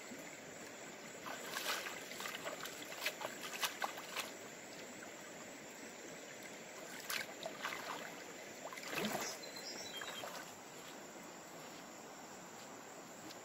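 A steady rushing background noise, with two clusters of sharp clicks and knocks, one starting about a second in and another in the second half.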